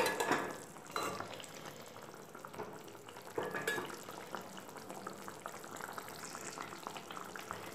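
Thin fish curry gravy simmering in a kadai with a soft, steady bubbling and sizzling. A sharp knock comes right at the start, and a few more scrapes follow about a second in and again around three and a half seconds, as a spatula gently turns the fish in the pan.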